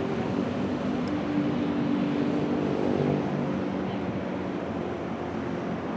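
Steady street-traffic noise from motor vehicles on the adjacent road, with an engine hum that is clearest from about one to four seconds in.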